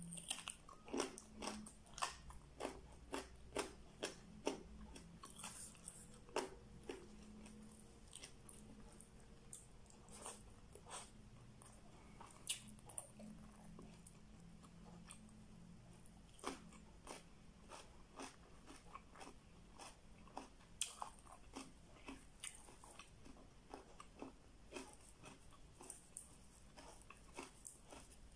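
Close-miked chewing and biting of food, with many irregular sharp wet mouth clicks and small crunches.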